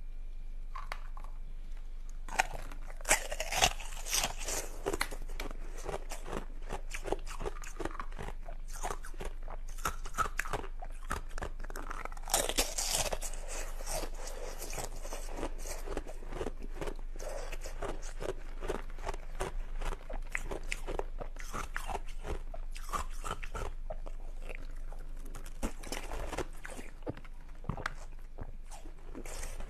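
Ice being bitten and chewed close to the microphone: a steady run of crisp crunches and crackles, with louder bites a few seconds in and again near the middle.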